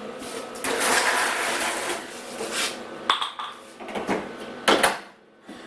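Metal tools or parts clattering and clinking as they are handled and set down, with a few sharp knocks in the second half.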